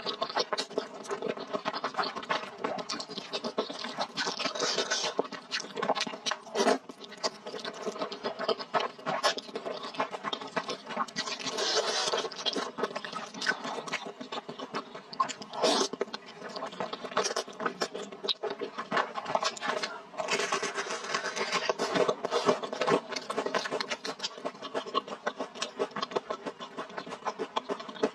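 Close-miked eating of thick rice noodles in a spicy sauce: wet slurping and chewing, a steady run of mouth smacks and clicks.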